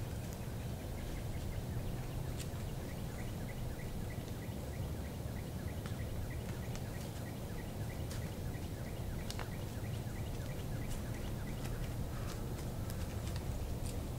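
Woodland ambience: a steady low rumble of wind, scattered light ticks, and a quick run of short high chirps, about five a second, for several seconds starting about a second in.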